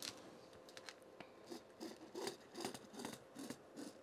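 Faint scratching of a fabric-marking tool drawn over cotton fabric along the edge of a quilting ruler: a run of short strokes, about two or three a second, clearest in the second half.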